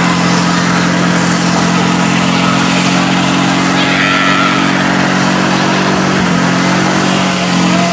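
Car engine held at steady high revs during a burnout, the rear tyres spinning and smoking, with a steady hiss over the engine note.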